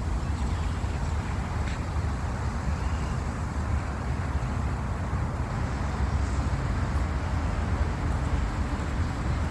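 Steady low rumbling outdoor noise with a fainter hiss above it, unbroken and without any distinct events.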